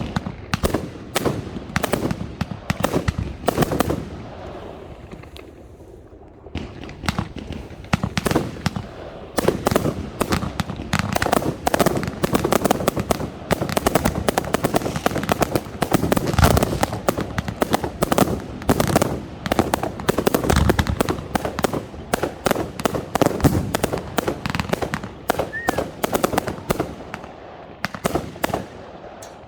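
Professional category F4 display fireworks going off in a dense barrage of rapid bangs and crackles. There is a short lull about four seconds in before the barrage picks up again.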